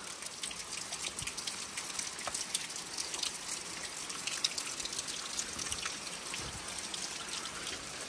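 Steady rain falling, with the quick ticks of many small drops landing close by.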